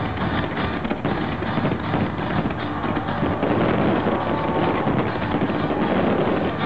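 Fireworks display going off: a dense, unbroken run of bangs and crackles over a low rumble, with wind on the microphone.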